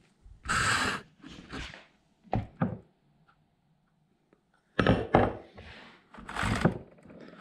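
Short scrapes and knocks of a combination wrench-screwdriver working the chain tensioning screw on a Ryobi 14-inch chainsaw. After a pause in the middle, more scraping follows as the chain is pulled along the bar to check its tension.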